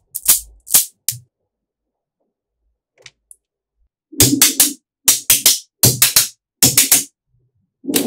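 Small neodymium magnetic balls clicking and clacking together in quick clusters as blocks of them are handled and set down. Several sharp clicks come in the first second, then a pause of about three seconds, then clusters of two or three clacks with a duller knock about once a second.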